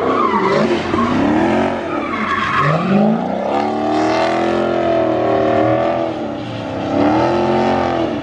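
Chrysler 300 sedan doing donuts: the engine is held at high revs, its pitch rising and falling as the throttle is worked. The rear tyres spin and squeal on the asphalt.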